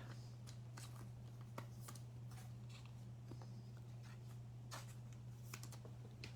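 Faint handling of trading cards: a scattered series of light taps and slides as cards are sorted, over a steady low hum.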